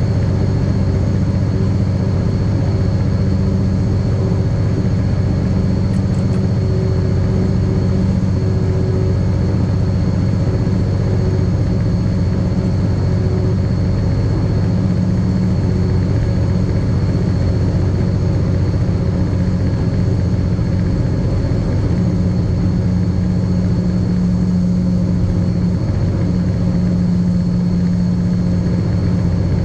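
Diesel-electric locomotive engine running steadily: a constant low drone that holds the same pitch throughout, with a thin steady whine above it.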